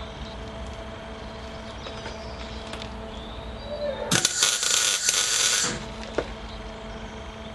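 Electric arc welding on steel tube: one burst of sizzling, crackling arc about four seconds in, lasting about a second and a half. A low steady hum runs under it.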